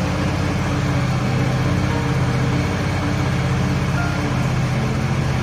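Honda Vario 110 carburettor scooter's single-cylinder four-stroke engine idling steadily.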